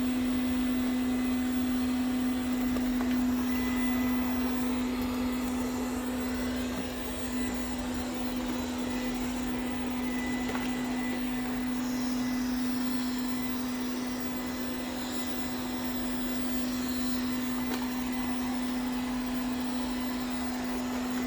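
Ziglint robot vacuum cleaner running: a steady motor hum holding one constant tone over an even hiss of suction airflow.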